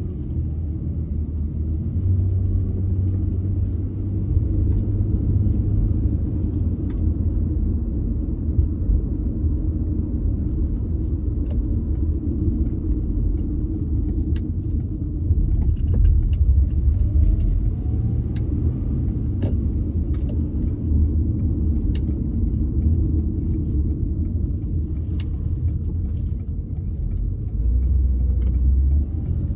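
Steady low rumble of a car driving, road and engine noise heard from inside the cabin, with a few faint clicks.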